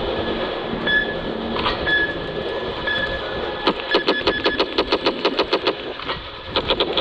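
Laser tag gun firing rapid bursts of its electronic machine-gun sound effect, about eight shots a second, starting a little past halfway through and resuming near the end. Before that, a steady rumbling noise with a short beep about once a second.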